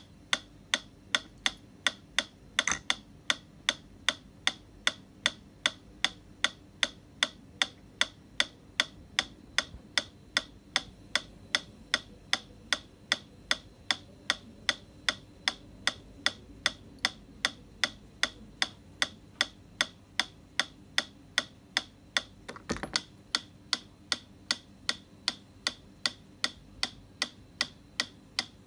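Mechanical pendulum metronome in a wooden case ticking steadily, about two and a half ticks a second, with one soft knock about three-quarters of the way through.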